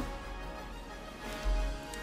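Quiet background music with steady held notes, and a brief low bump about one and a half seconds in.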